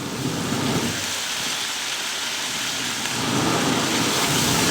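Fish frying in hot oil: a steady hissing sizzle that grows a little louder about three seconds in.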